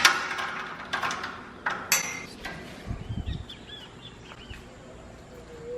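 A few sharp knocks and clatters, then a short run of small chirping bird calls.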